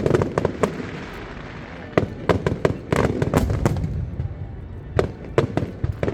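Fireworks bursting overhead: clusters of sharp bangs every second or two, with crackling and a low rumble between them.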